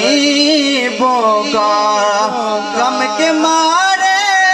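A man singing a manqabat (devotional song in praise of Ali) into a microphone, drawing out long wordless notes whose pitch glides up and down in ornamented melismas.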